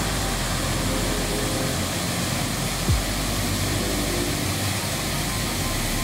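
Waterfall pouring into a foaming pool: a steady rush of water, with one brief low thump about halfway through.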